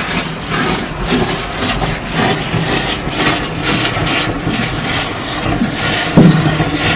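Industrial vacuum suction unit running while its hose sucks coolant and sludge out of a CNC machine's coolant sump, with a steady low rumble and irregular hissing surges as air and liquid are drawn in.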